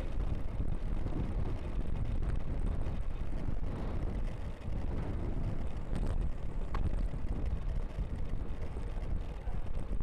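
Wind buffeting the microphone of a camera on a mountain bike ridden fast on a paved road: a steady low rumble of wind and tyre noise, with a couple of faint clicks about six seconds in.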